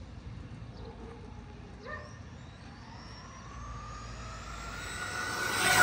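Traxxas Stampede 4x4 RC truck with a Castle 1512 2650kv brushless motor on 4S making a full-speed pass: its high motor whine climbs in pitch and loudness over the last few seconds and is loudest as it passes close at the very end.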